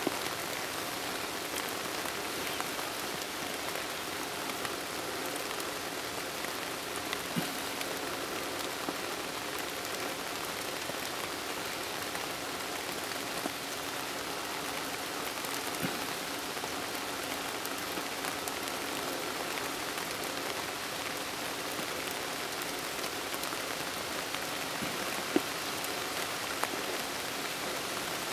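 Steady rain falling on forest foliage: an even hiss with a few sharp ticks of single drops.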